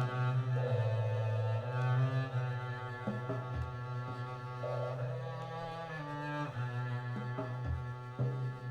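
Double bass played with the bow, drawing slow, long-held low notes that move from pitch to pitch every second or two.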